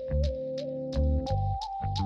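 Background music with a steady beat: a held keyboard melody over a stepping bass line and a regular hi-hat tick.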